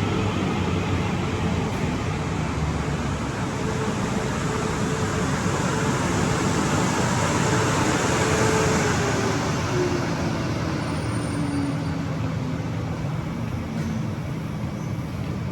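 Class 450 Desiro electric multiple unit arriving at a platform: a steady rumble of wheels on rail, with a falling whine from the traction motors about halfway through as the train brakes to a stop.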